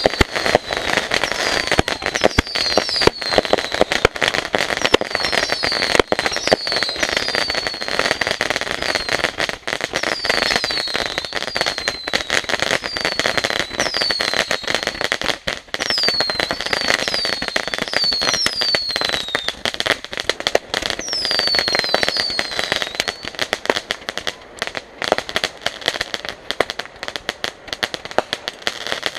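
Consumer fireworks going off in rapid succession: a dense run of crackling pops, with many short whistles that fall in pitch during the first twenty-odd seconds, then crackling alone near the end.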